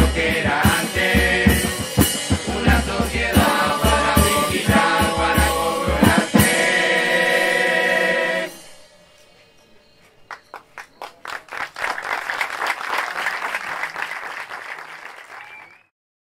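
Murga choir singing over steady drum hits, ending on a long held chord about eight seconds in. After a short pause the audience claps and applauds, cut off suddenly near the end.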